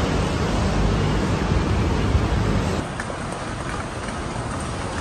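Steady traffic noise from a busy city street with cars and motor scooters passing, a low rumble under a hiss. About three seconds in it drops abruptly to a quieter street ambience.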